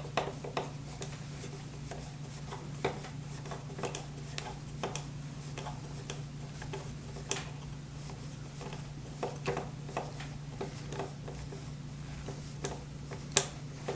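Small irregular clicks and taps of an Allen key and M3 screws working into 3D-printed plastic gearbox plates, with one sharper click near the end, over a steady low hum.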